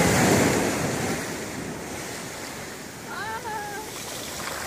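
Ocean surf: a wave washing in over the sand around the feet, loudest at the start and easing over a second or two into steady surf noise.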